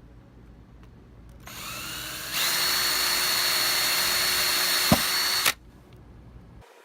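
Electric drill with a 1/8-inch bit drilling a hole in a PVC pipe cap. The motor winds up with a rising whine about a second and a half in, runs at full speed with a steady high whine for about three seconds, gives a sharp click just before the end, then stops abruptly.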